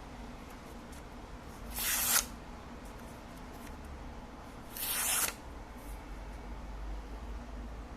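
Tanto knife blade slicing through paper twice, each cut a short hiss of about half a second, roughly three seconds apart.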